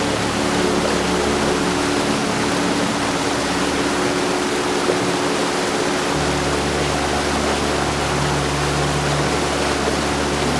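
Heavy rain falling steadily, a dense even hiss, with a few faint steady low tones beneath it.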